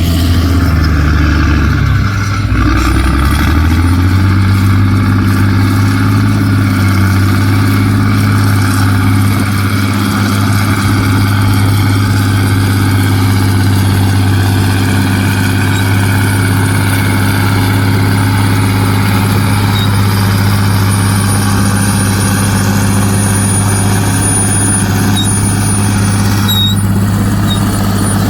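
Dump truck's diesel engine running at a steady speed. Its pitch shifts a few times in the first four seconds, then settles into an even drone.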